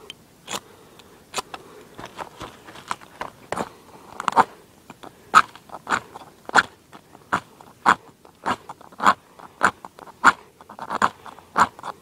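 Hacksaw-blade striker scraped hard down the ferro rod of a magnesium fire starter, one short rasping stroke after another, throwing sparks onto magnesium shavings. The strokes are uneven at first and settle to about three every two seconds from the middle on.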